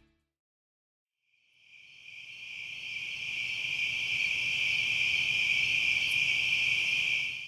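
Steady, high-pitched chirring of a night insect chorus, crickets, fading in about two seconds in and cutting off sharply at the end.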